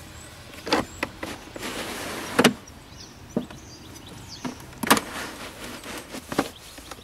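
Clicks and knocks from a BMW R1200GS hard side case being handled, its latch and lid worked by hand. About eight separate sharp knocks, the loudest about two and a half seconds in and again about five seconds in.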